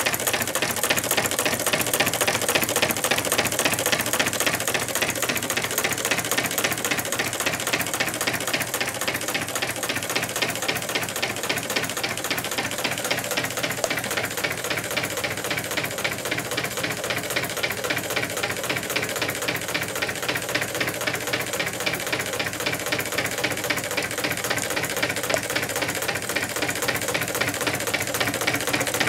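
Twin-cylinder Meccano Stirling engine running steadily, with a rapid, even clatter of clicks as its displacers land at each end of their travel.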